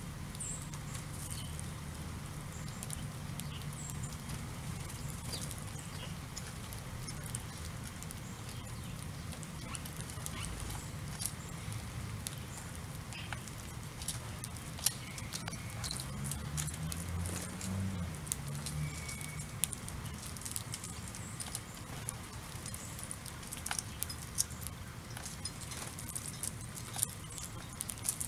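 House sparrows pecking at birdseed on asphalt: many light, irregular clicks and taps, over a low steady hum that swells and wavers briefly past the middle.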